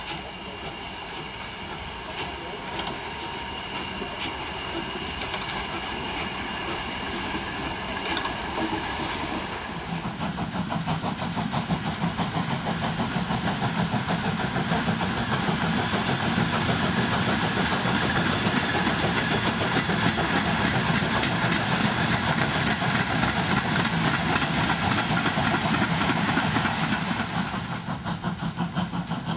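Class 38 (Prussian P8) steam locomotive working a passenger train, its exhaust beat and running gear sounding steadily. The sound steps up about ten seconds in and grows louder as the locomotive comes nearer, turning to a coarser regular beat near the end.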